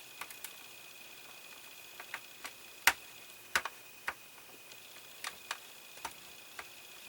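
Scattered small clicks and taps, about a dozen at uneven intervals, from a small screwdriver and plastic model parts as a small screw is driven in to secure a part of a scale model. A faint steady high-pitched whine runs underneath.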